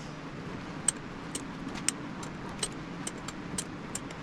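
Light, irregular metallic clicks, about two a second, from a bench vise being slowly unscrewed to release a compressed door-hinge spring, over a steady low hum.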